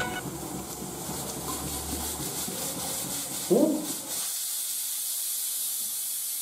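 Pressure cooker on a gas burner venting steam, a steady high hiss that starts about four seconds in, just after a short, louder sound.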